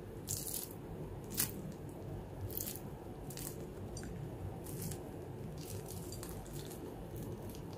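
Crisp deep-fried stuffed dough snack crackling as fingers press and crack open its hard fried shell: a string of short crackles, about one a second, over faint steady background noise.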